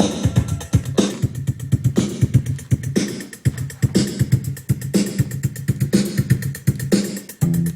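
Music with a steady drum beat, an FM radio station playing through a Yamaha CRX-TS20 micro stereo system.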